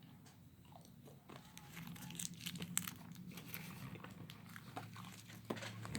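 Faint crinkling with scattered sharp clicks, starting about a second in: a stick of 5 gum being unwrapped from its wrapper and chewed.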